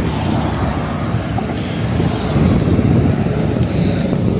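Wind buffeting the microphone in a continuous low rumble, mixed with road traffic on the flyover.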